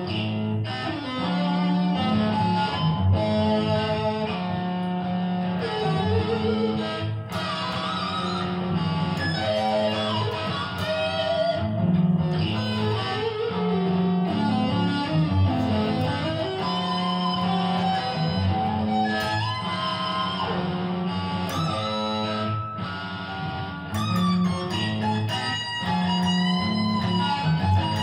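Electric guitar playing a blues: single-note lead lines with bent notes over a recurring low note.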